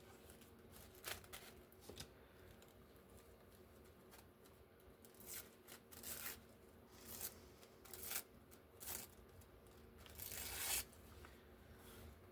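Paper being torn by hand in a series of short rips, the longest and loudest near the end.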